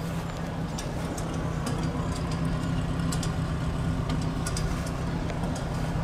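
An engine running steadily, a low, even hum with scattered light clicks over it.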